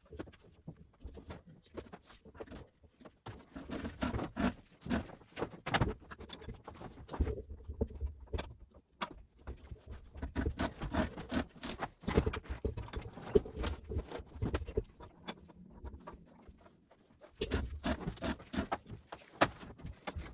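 Sped-up workshop handling noise of stripping heavy copper wire through a wooden stripper block in a vise: rapid, irregular clicks, rustles and knocks of wire, insulation and gloved hands, with a few short pauses.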